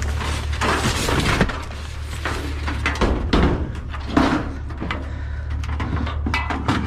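Scrapped junk being handled and pulled free: several rounds of scraping, rattling and knocking, over a steady low hum.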